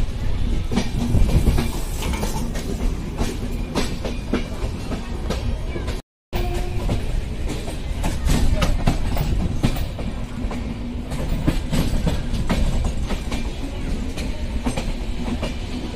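Moving Indian Railways passenger train heard from an open coach doorway: a steady running rumble with wheels clattering over the rail joints. The sound drops out completely for a moment about six seconds in.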